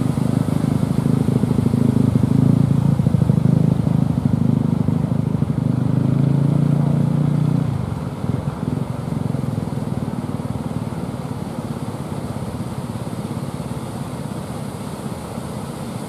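A fishing boat's engine running at a steady note, then dropping away sharply about halfway through, leaving the wash of surf.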